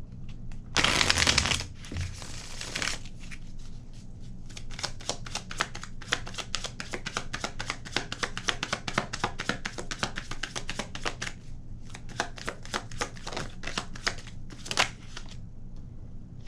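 A tarot deck shuffled by hand. Two swishes of cards come in the first few seconds, the first one loud, then a long run of rapid card flicks and taps, many a second.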